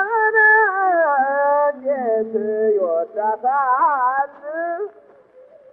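Old Ethiopian gramophone record of a man singing long, wavering held notes with pitch bends, the sound thin and lacking highs. The singing breaks off about five seconds in.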